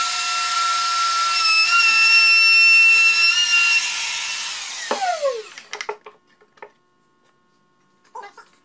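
DeWalt compact router running with a steady high whine as it cuts along the edge of a wooden rail. About five seconds in it is switched off and its pitch falls as the motor spins down. A few light knocks follow as it is set down on the bench.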